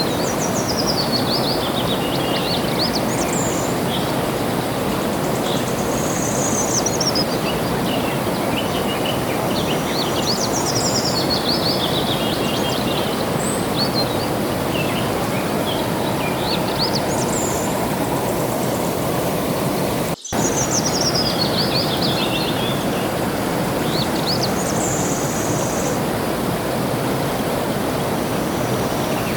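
Steady rush of flowing water with a songbird singing over it, repeating a short phrase of quick notes that falls in pitch every few seconds. The sound cuts out for an instant about two-thirds of the way through.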